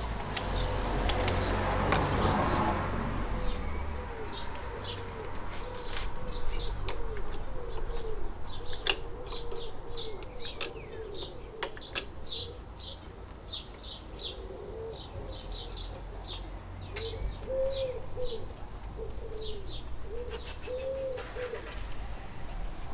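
A pigeon cooing over and over, with small birds chirping, and now and then a sharp metallic click from a spanner on the carburettor nut. A brief rush of noise in the first couple of seconds.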